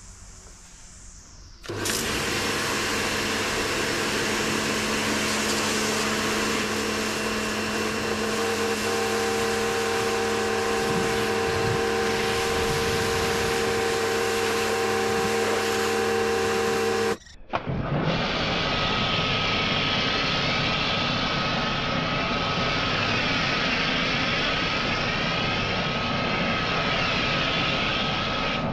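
Karcher K2 electric pressure washer running and spraying a jet of water, its motor and pump humming steadily under the hiss of the spray; it starts about two seconds in. After a brief break past the middle, the spray carries on through a snow foam cannon, with a steady thin whine over the hiss.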